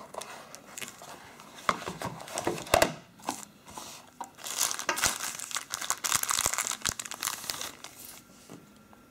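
Thin clear plastic sleeve crinkling and rustling as a phone is pulled out of it, with a few sharp clicks of handling. The crinkling is busiest in the second half and dies away near the end.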